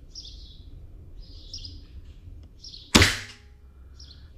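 Kral Puncher PCP air rifle, set to full power, fires a single shot about three seconds in: one sharp report that dies away within half a second. Small birds chirp repeatedly in the background.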